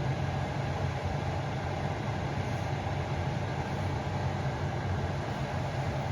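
Panasonic air humidifier running after being switched on, its fan giving a steady whooshing noise over a low hum.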